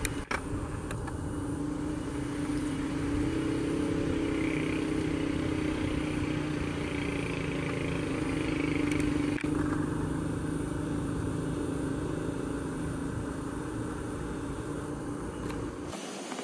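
A motor running steadily with a low drone, its upper part changing abruptly about nine and a half seconds in and the whole sound cutting off suddenly near the end.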